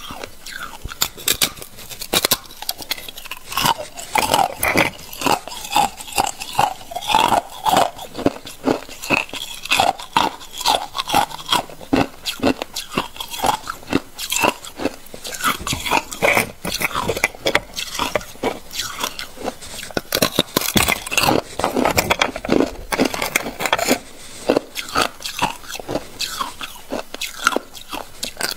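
Thin sheets of ice being bitten and chewed, a dense, irregular run of sharp cracks and crunches.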